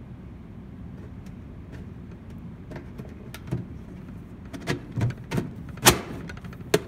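Interlocking teeth of plastic post-wrap pieces clicking as they ratchet together under hand pressure: scattered sharp clicks that come faster and louder in the second half, with the loudest snap about six seconds in.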